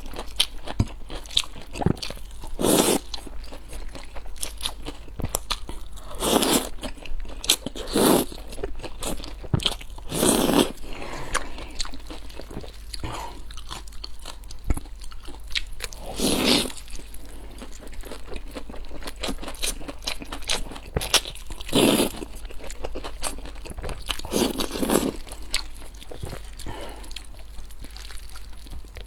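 Close-miked eating sounds: steady chewing, broken every few seconds by a loud bite or slurp, about seven in all.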